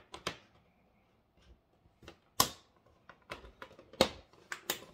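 Plastic retaining clips of the Asus PG27UQ monitor's back shell snapping loose as a guitar pick pries along the seam: several sharp, irregular clicks and snaps, the loudest about two and a half and four seconds in, and again near the end.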